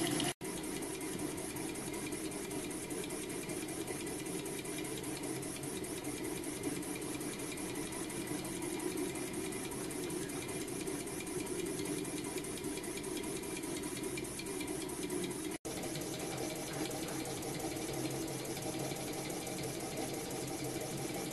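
Home-made rocking-beam model steam engine running fast on compressed air, a steady rapid chatter of exhaust beats and moving valve gear. The sound breaks off for an instant twice, about half a second in and again about three quarters through.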